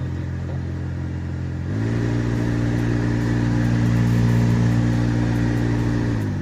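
Alto K10's AC blower fan running with a loud, steady hum that steps up in pitch and loudness about two seconds in as the fan speed is raised, then drops back down near the end. The noise is abnormal; the owner puts it down to dust and leaves drawn into the blower through the fresh-air intake.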